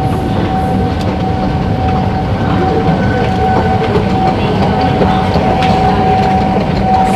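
Metro station escalator running: a loud, steady mechanical rumble with one constant high hum.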